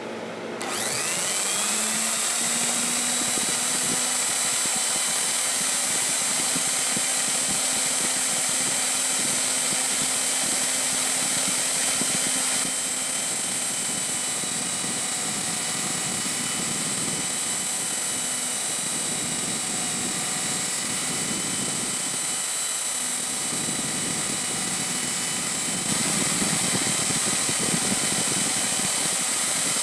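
Tool post grinder spinning up to speed about a second in, then running steadily with a high whine as its wheel finish-grinds the 1-inch section of a stub arbor turning in the lathe.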